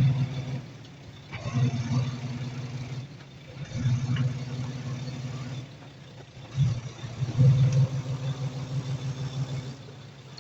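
Heavy diesel earthmoving machine's engine revving up in repeated surges a few seconds apart, dropping back toward idle between them.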